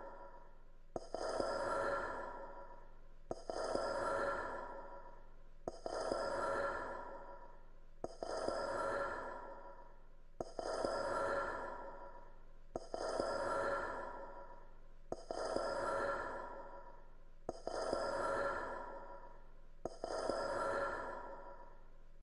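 A breathy, sigh-like exhale repeating at an even pace, about every two and a half seconds, each one starting sharply and fading away; the repeats are nearly identical, like a looped sound.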